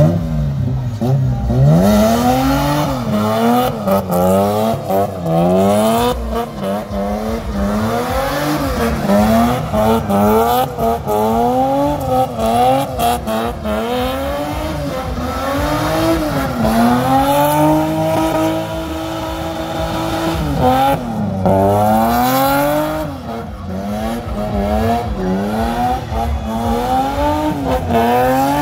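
Car engine revved hard up and down over and over, with stretches held at high revs, as the car spins donuts with its wheels spinning and throwing up smoke and dust.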